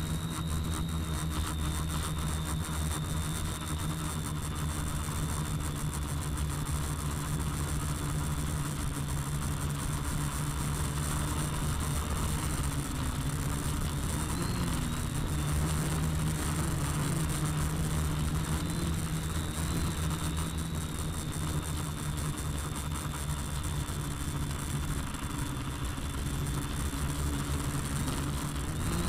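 Quadcopter's electric motors and propellers running steadily in flight, heard close up through its onboard Mobius camera: a high whine over a low hum, the pitch wavering briefly about halfway through.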